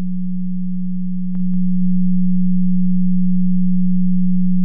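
Steady 182 Hz sine tone from the PhET Sound simulation. About a second and a half in, with a faint click, it steps up in loudness and then holds. This is the raised amplitude reaching the listener after a short delay.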